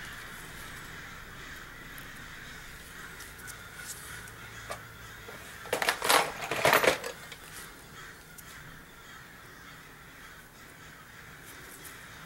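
A bird cawing: a few harsh calls in quick succession about six seconds in, over a steady faint background hiss.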